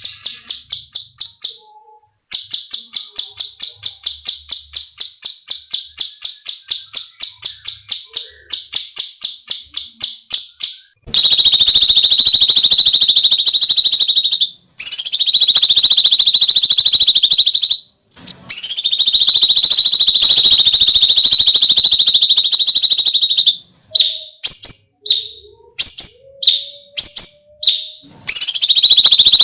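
Cucak cungkok songbird: a rapid run of sharp, evenly repeated notes at about five a second, then long, shrill, unbroken screeching held at one high pitch for several seconds at a time. A few short separate calls come before the last long stretch near the end.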